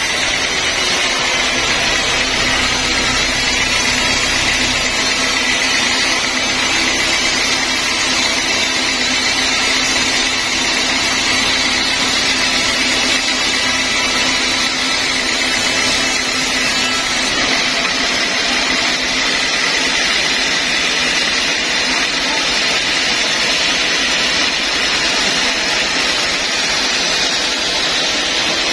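Sawmill bandsaw running steadily as its blade cuts lengthwise through a large log. The sound is loud and even, and its character changes slightly about two-thirds of the way through.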